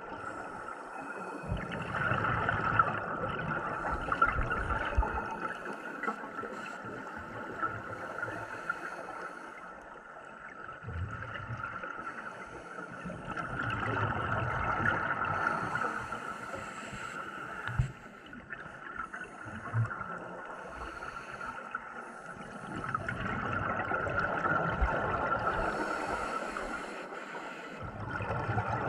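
Scuba regulator exhaust bubbling underwater as a diver breathes out, in swells a few seconds long about three or four times, with quieter gaps for the in-breaths. A few small clicks sit between them.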